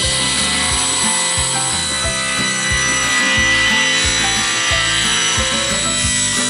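Table saw ripping maple boards, the blade's steady whine and cutting noise running continuously, with background music over it.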